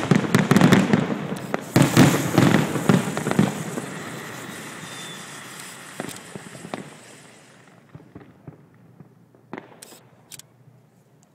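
Fireworks going off: a sharp bang, then about four seconds of dense crackling pops that fade away, with a few scattered pops near the end.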